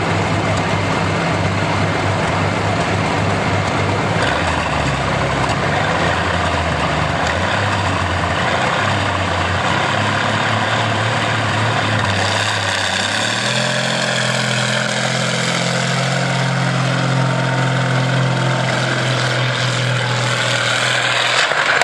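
Pulling tractor engine running as a steady low drone that shifts in pitch. A little past halfway it revs up and holds at a higher, steady pitch.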